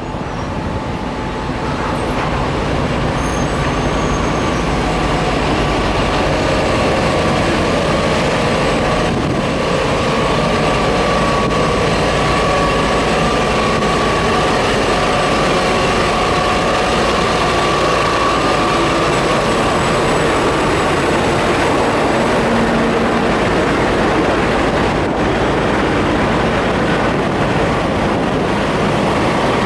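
Parked diesel semi trucks idling: a steady engine drone with a faint steady whine over it, unchanging throughout.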